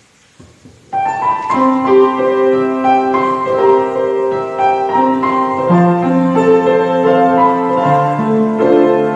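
Piano playing a slow introduction of sustained chords under a melody, coming in about a second in after a few faint knocks.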